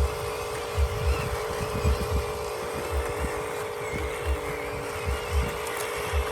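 Steady whine of small electric motors and gearboxes in radio-controlled construction models, with irregular low thumps several times a second.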